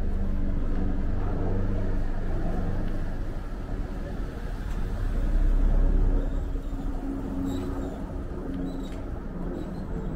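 Street traffic: a motor vehicle's engine running close by, with a deeper rumble swelling about five seconds in as a vehicle passes, then easing off.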